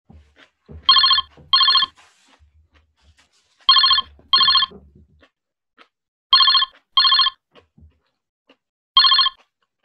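Phone ringtone: an electronic double ring, two short trills followed by a pause of about two seconds, heard three times, with a single ring near the end. Light rustling and knocks of handling fall between the rings.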